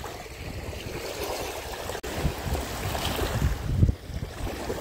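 Small waves lapping on a pebble shore, with wind gusting on the microphone in low rumbles.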